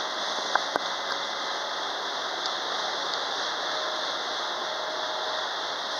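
Freight train of autorack cars rolling past, a steady noise of wheels running on the rails, with two sharp clicks just under a second in and a faint thin whine partway through.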